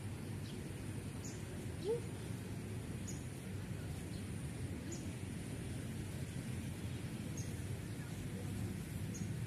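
Outdoor ambience: a steady low background noise with a small bird chirping briefly every second or two. A short rising call about two seconds in is the loudest moment.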